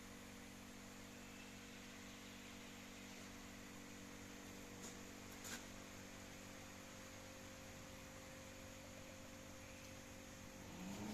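Near silence: a steady low electrical hum with hiss, two faint clicks about halfway through, and a louder low sound coming in with a short rising tone just before the end.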